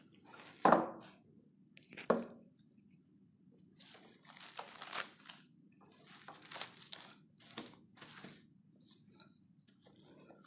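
Cling film crinkling and rustling as a wooden rolling pin is worked over pastry dough wrapped in it, with two sharp knocks in the first two seconds.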